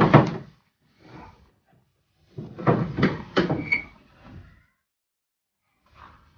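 Maruti Zen's bonnet being released and lifted open: a few clunks and rattles of the latch and metal panel, with a brief metallic ping in the middle.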